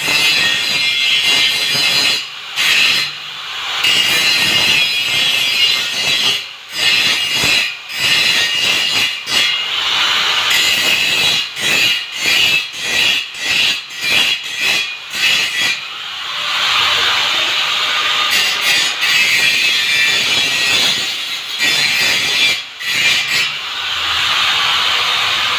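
Angle grinder grinding steel, a loud harsh hiss that drops out briefly again and again as the disc is lifted and pressed back on the metal, running more steadily near the end.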